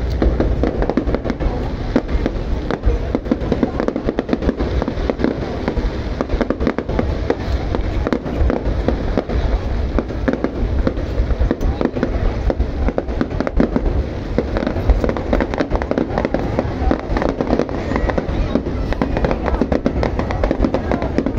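Fireworks display: a continuous barrage of many rapid bangs and crackles over a low rumble.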